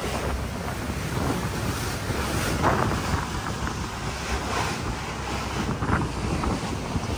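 Wind buffeting the microphone over the steady rush of a boat running at speed through the sea, its engine and the water along the hull blending into one low noise.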